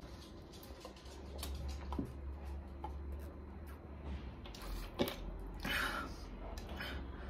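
Someone drinking water from a plastic bottle in long swallows, with a few small clicks and a short noise as the bottle comes away from the mouth about six seconds in, over a steady low hum.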